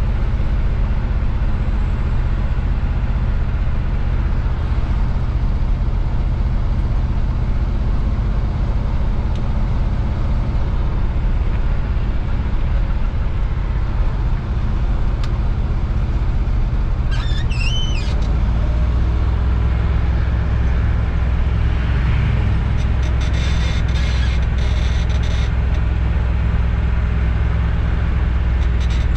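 Engine and road noise of a vehicle heard from inside its cab while driving slowly through town, a steady low drone. About 18 seconds in the drone grows louder and deeper, and just before that a brief high squeak wavers up and down.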